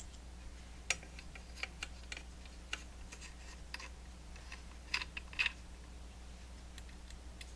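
Irregular light clicks and taps of small metal parts as scope rings are handled and fitted onto a rifle's rail, with a cluster of louder clicks about five seconds in. A low steady hum underneath.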